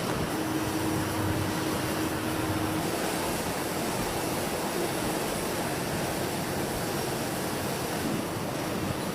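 Steady machinery noise of a processing plant, an even rushing din with a faint hum that fades out a few seconds in.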